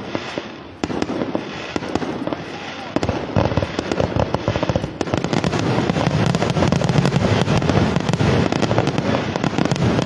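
Fireworks display going off: separate bangs and cracks at first, then about three seconds in a dense, near-continuous barrage of bangs and crackling.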